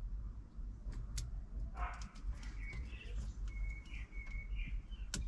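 A songbird singing outside: a run of short whistled notes starting about two seconds in. Under it, scattered light clicks of a small screwdriver prying at the plastic clips of a car stereo's wiring connector block, with a sharper click near the end.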